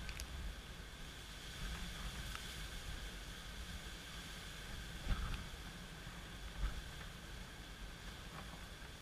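Rain and gusty wind ahead of a hurricane: a steady hiss of rain, with wind gusts buffeting the microphone about five seconds in and again a second and a half later.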